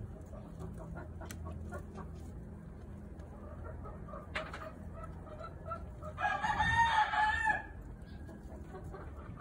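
A rooster crowing once, a single call of about a second and a half starting about six seconds in, over a low steady hum.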